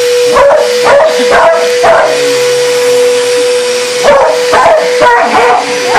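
A dog barking in two quick runs of about four barks each, roughly two barks a second, over the steady whine of a running motor.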